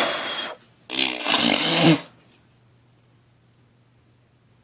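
A person blowing dust out of an open desktop PC by mouth: two hard blows, a short one and then a longer one about a second later with a low buzz in it.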